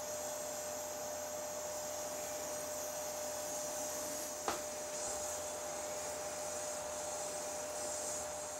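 Small oxygen-propane torch flame hissing steadily while it heats steel tool shanks to silver-soldering temperature, with a single sharp click about halfway through.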